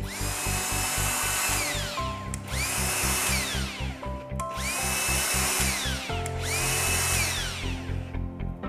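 Makita DGD800 18V cordless die grinder run unloaded four times in a row: each time its high whine rises quickly, holds for about a second and a half, then slides down as the motor coasts to a stop. Background music with a steady beat runs underneath.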